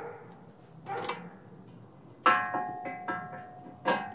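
Steel square tubing clanking against a steel bench and vise: several knocks, the two loudest a little past halfway and near the end, each ringing on briefly with a metallic tone.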